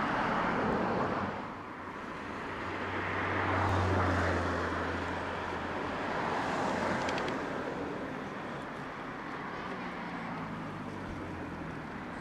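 Steady road traffic noise, with a vehicle passing that swells and fades, loudest about four seconds in.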